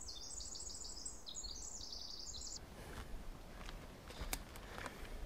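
A small songbird singing a rapid, high-pitched run of short tumbling notes for about two and a half seconds. After it come a few faint snaps and rustles of footsteps on the forest floor.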